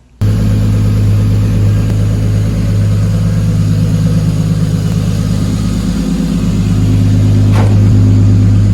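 Lexus IS300's 2JZ-GE inline-six engine running steadily, with a constant low hum that starts abruptly and swells slightly near the end. It is running smoothly now that the pinched coil wire and loose spark plug behind its misfire have been fixed.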